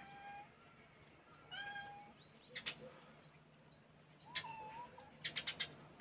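A domestic cat meowing faintly, three short meows. Between them come a few sharp clicks, the loudest a quick run of clicks near the end.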